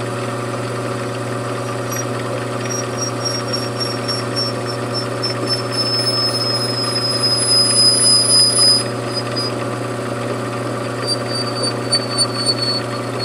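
Metalworking machine tool running with a steady hum, and a thin high whine from the cut that slowly falls in pitch. It grows louder and rougher for a couple of seconds past the middle, with a few short scrapes near the end.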